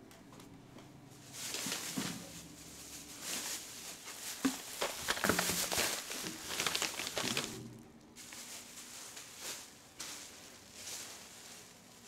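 Rustling and crinkling with scattered knocks and footsteps as a person moves about the room, busiest in the first seven seconds or so, then a few isolated knocks.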